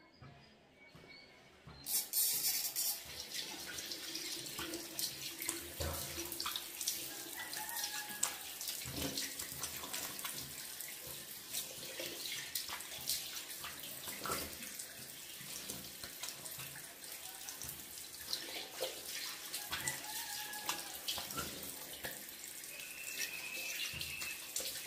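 A tap turns on about two seconds in and runs steadily into a sink, with splashing as hands scoop water to rinse cleansing cream off a face.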